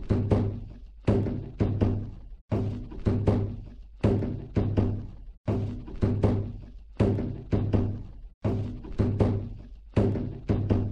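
Music of drum strikes: groups of deep, ringing hits in a rhythmic pattern that repeats about every three seconds.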